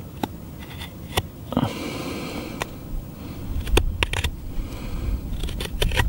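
Brisa Hiking 75 knife whittling a wooden stick: scattered sharp clicks as the blade bites and chips snap off, with a longer scraping shave stroke about two seconds in.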